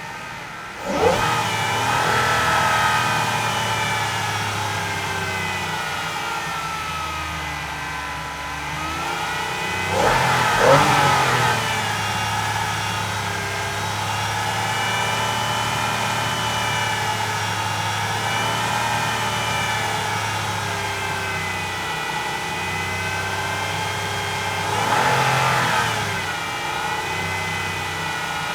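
Aston Martin sports car engine revving and accelerating. Its note climbs sharply about a second in, again around ten seconds in and again near the end, and wavers up and down in between.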